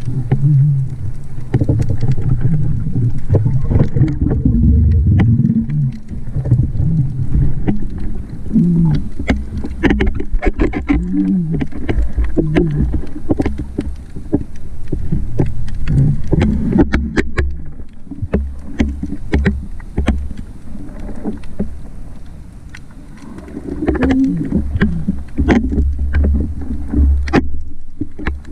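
Underwater sound picked up through a diving camera's housing: a low churning rumble of water moving around the swimming diver, with many scattered sharp clicks. It dips briefly quieter late on.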